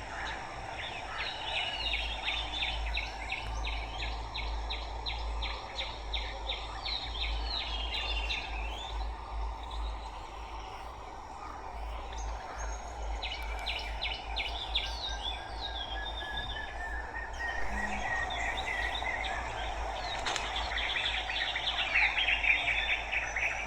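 Several birds chirping and trilling, with runs of quick repeated chirps and a rising series of notes, over a steady background noise.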